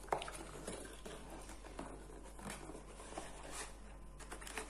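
Cardboard box of a roll-on wax kit being handled and opened, with paper wax strips drawn out: soft rustling and scraping with light taps, and a sharper click just after the start.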